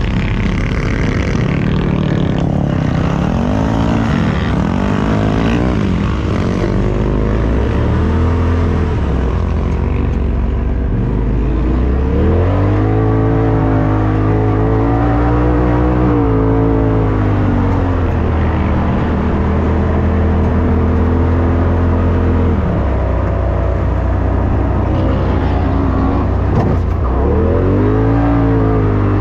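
Polaris RZR Turbo S side-by-side's turbocharged twin-cylinder engine pulling through soft sand, heard from the driver's seat. The revs rise and fall over and over, held high for a few seconds at a time as the throttle is worked up the dunes.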